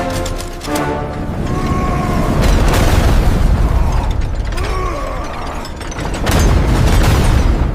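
Heavy machinery straining: a deep rumble that swells twice, with dense metallic clanking and a short metal squeal about two seconds in and again about five seconds in.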